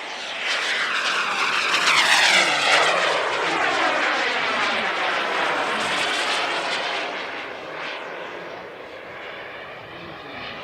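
Hangar 9 Aermacchi MB-339 radio-controlled turbine jet making a fast pass. Its whine swells to a peak about two seconds in, drops in pitch as it goes by, and fades away over the following seconds.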